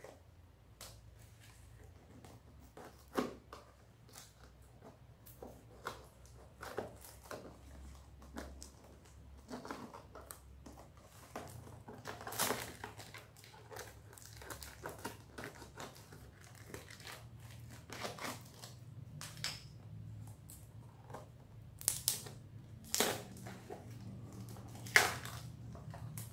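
A knife cutting and tearing through packing tape and plastic wrapping, with crinkling, rustling and scattered sharp clicks. Near the end come a few louder knocks as a clear plastic tub is handled.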